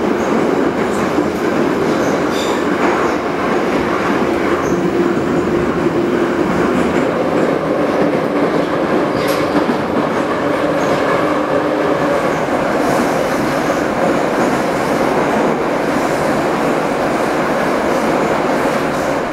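Steady running noise of an 81-717/714 'Nomernoy' metro train heard from inside the passenger car at speed: wheels rolling on the rails with a dense rumble, and one sharp click about nine seconds in.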